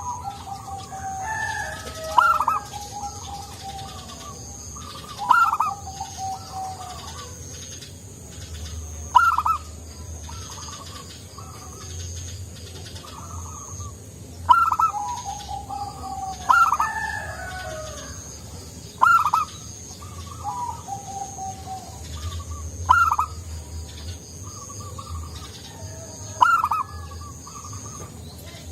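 Zebra dove (perkutut) singing: about every two to four seconds a loud, sharp rising-and-falling note, followed by a run of lower, softer cooing notes. Behind it runs a steady high, thin chirring that stops and starts.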